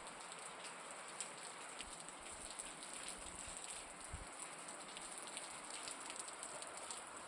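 Heavy rain falling steadily, with a dense patter of small drop ticks on hard surfaces.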